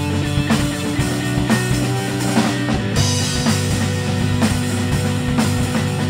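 Background music: a rock track with drums and guitar over a steady beat of about two hits a second.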